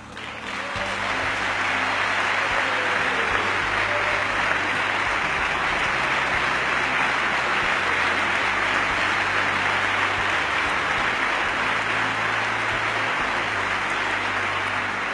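A large crowd applauding: dense, sustained clapping that swells up over the first second and then holds steady.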